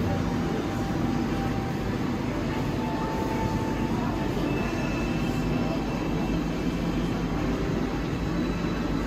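Steady low rumble of an aquarium hall's background noise, the hum of tank pumps and ventilation, with faint distant voices now and then.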